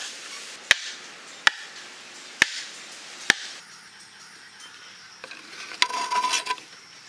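A wooden club knocking a wooden stake into sandy ground: five sharp knocks at uneven intervals over the first three and a half seconds. About six seconds in, a short creaking rustle as a green vine strip is pulled tight around a crosspiece stick.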